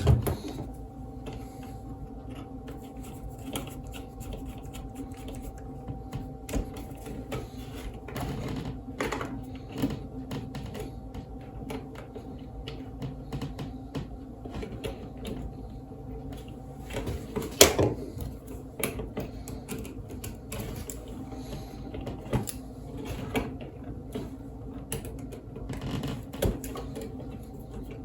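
Scattered small clicks and knocks of hand tools, wires and switch parts being handled at an electrical box, the loudest about halfway through, over a steady low hum.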